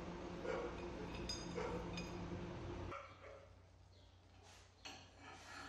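A dog barking faintly a few times, with light metallic clinks from a steel bar and tube being handled at a bench vise. A steady background hum cuts off abruptly about three seconds in.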